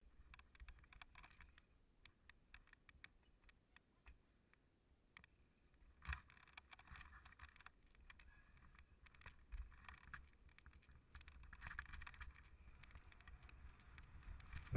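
Faint, muffled rattle and scattered knocks of a mountain bike rolling over bumpy grass and dirt, with one sharper knock about six seconds in and a little more rattle towards the end.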